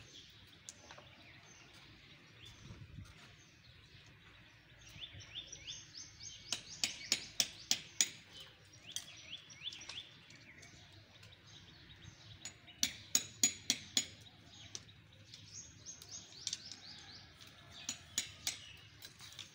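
Small birds chirping: short, sharp, quickly repeated calls that come in bursts, over faint background noise.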